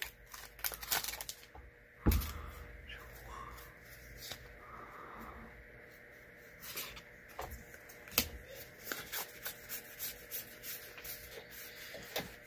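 Magic: The Gathering cards being handled and flipped through one by one: soft slides and small clicks of card stock, with a sharper knock about two seconds in and another about eight seconds in.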